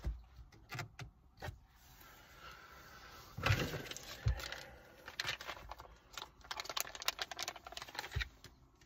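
Hand tools and small shifter parts clicking and rattling as the shifter base bushings are worked loose and handled. The clicks are short and irregular, a few at first and then a dense run through the second half.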